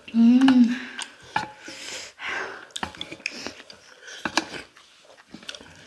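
Eating at a table: noodles slurped and chewed, with chopsticks clicking against metal plates. A short hummed voice sound near the start is the loudest thing.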